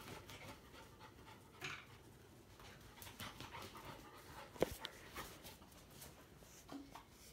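Puppy panting, with faint scattered clicks and one sharp click a little past halfway.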